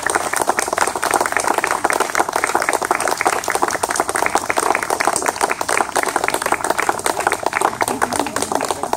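A small crowd clapping: steady applause that eases a little near the end.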